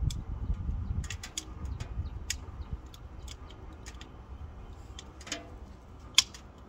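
Wood fire crackling inside a Pomoly Dweller Max 2.0 tent stove, with irregular sharp pops, the loudest about six seconds in. A low rumble sits under it during the first few seconds.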